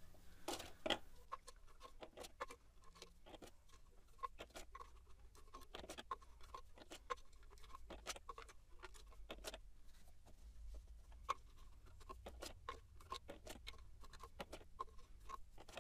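Faint, rapid, irregular clicks and taps of a small plastic syringe and hands working at a plastic power steering fluid reservoir as old fluid is drawn out, in sped-up playback.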